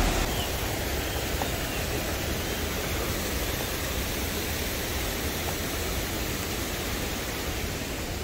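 Rushing water of a mountain stream or waterfall, a steady, even rushing noise.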